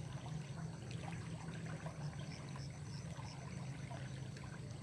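Steady trickling of flowing water, with a short run of faint, evenly spaced high chirps, about three a second, in the middle.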